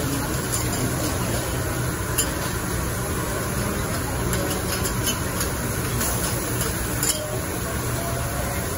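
Food sizzling on a flat-top griddle under a steady low hum, with a few sharp clicks of metal spatulas against the griddle.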